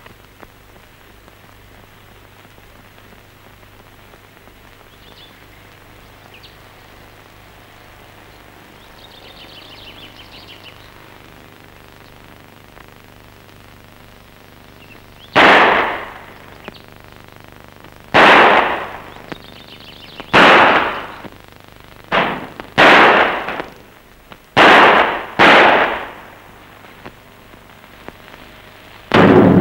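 Steady hiss of an old optical film soundtrack, then, from about halfway, a string of eight loud explosions. Each is a sharp blast that dies away over about a second, coming one to three seconds apart.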